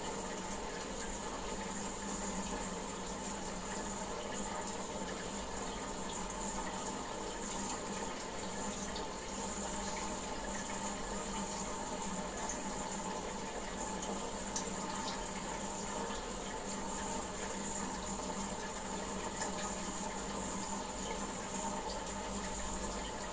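Water running and splashing steadily in a goldfish aquarium, with a steady hum underneath and a few faint ticks.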